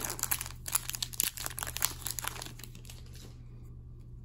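Foil trading-card pack wrapper crinkling and rustling as the pack is opened and the cards are pulled out, dying away about three seconds in.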